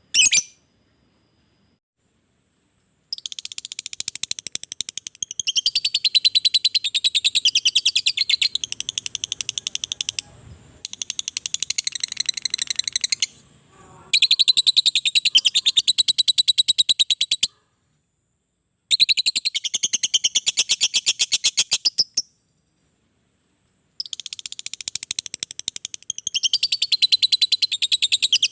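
Lovebird giving its long chattering song ('ngekek panjang'): a very rapid run of shrill, evenly repeated notes, sung in bouts of several seconds each. The bouts are broken by short silences. A single sharp chirp comes right at the start.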